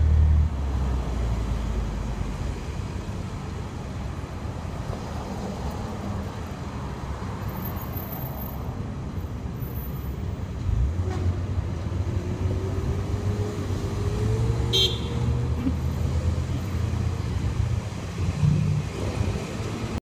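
Street traffic at a city intersection: cars and a minivan passing with a steady low rumble. A faint, slowly rising whine comes in during the second half, and a brief high-pitched sound is heard about three-quarters through.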